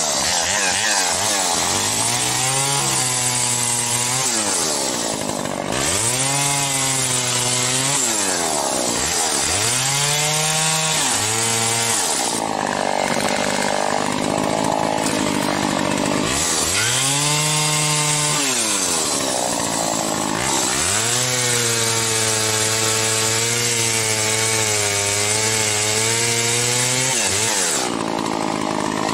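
Homelite 410 two-stroke chainsaw with round-ground chisel chain cutting through oak. The engine repeatedly pulls down to a lower pitch as the chain loads up in the wood and revs back up as it frees, with one long sustained cut in the second half.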